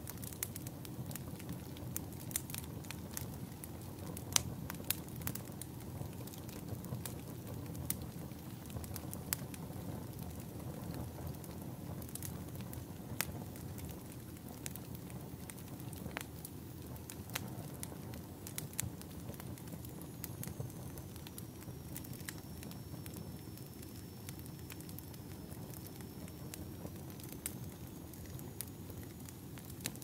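Wood fire burning: a steady low rush with scattered crackles and pops, and a faint high whistle through the second half.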